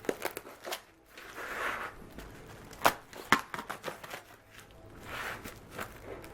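Paper and cardboard packaging rustling and crinkling as a package is unwrapped by hand, with a few sharp taps or clicks, two louder ones about three seconds in.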